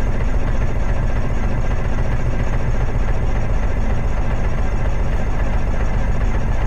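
Electric starter cranking a light aircraft's Lycoming IO-360 four-cylinder engine, heard from inside the cockpit: a steady churning as the propeller is turned over without the engine catching, a failed cold start.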